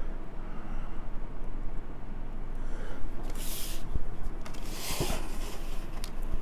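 Handling of watch packaging: two brief rustles and a few light knocks as the box is moved and opened, over a steady low hum.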